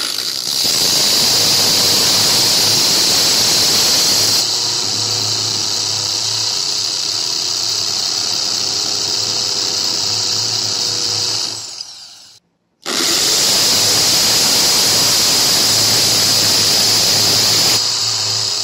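Electric drill boring holes into a wall, a loud steady high whine. It winds down about halfway through and, after a short break, runs again for a second hole, beginning to slow near the end.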